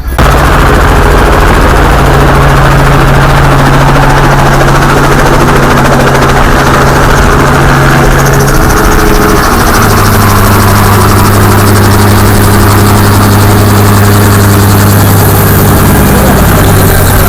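Helicopter engine and rotor running loudly and steadily. Its low drone drops to a lower pitch about halfway through.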